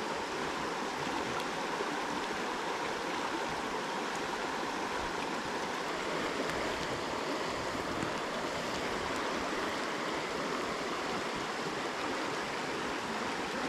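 Shallow, rocky stream running over stones in a riffle: a steady rush of water.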